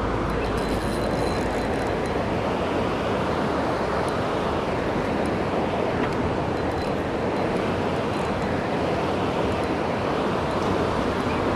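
Steady rush of a fast river riffle running over rocks, with a few faint ticks over it.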